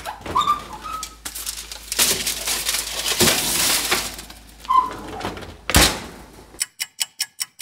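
Kitchen oven door opened with a short squeak of its hinges. A foil-wrapped pan rustles and scrapes as it slides onto the wire rack, then the door squeaks and shuts with a single thud. Near the end a rapid, even ticking starts, about six ticks a second.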